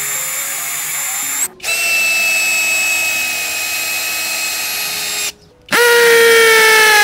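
WORX WU369 cordless drill motor whining steadily in three runs, cut off twice briefly. The last run is the loudest, and its pitch sinks slightly as it goes.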